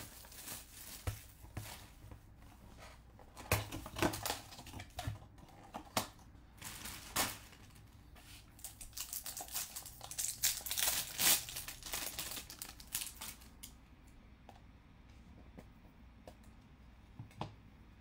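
Bowman Chrome trading cards being handled by hand: crinkling of pack wrappers and cards flicked through and shuffled, in irregular bursts of rustling and clicks that thin out to a few soft clicks after about thirteen seconds.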